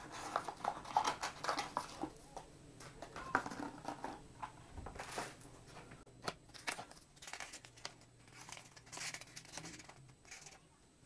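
Paper and cardboard being handled: rustling and crinkling as an opened product box is moved and a folded paper instruction leaflet is taken out and unfolded, with scattered light taps and clicks.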